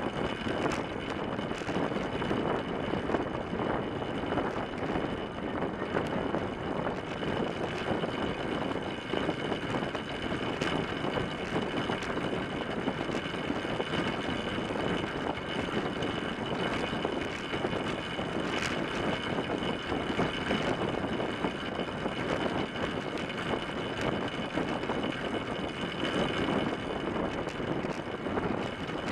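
Steady rushing wind over a fork-mounted camera on a moving track bike, mixed with the rolling of its tyres on the wooden velodrome boards, with a faint steady high whine.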